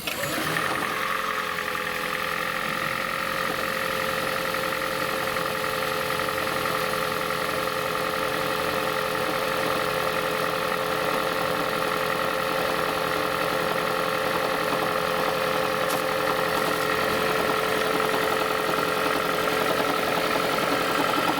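The 2ZR-FXE engine of a 2011 Toyota Prius comes in suddenly and runs cold and steadily, with a knock. Transmission specialists put the knock down, most likely, to the damper in the transmission rattling from heavy engine vibration and misfiring. New spark plugs and an injector cleaning cured it.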